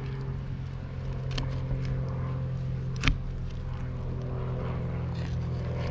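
A steady low mechanical hum, with a few faint clicks and one sharp knock about three seconds in.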